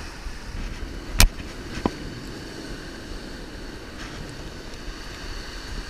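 Steady wash of surf, with one sharp knock a little over a second in and a lighter click just after it. These are handling noises as a treble hook is worked free of a small striped bass's mouth.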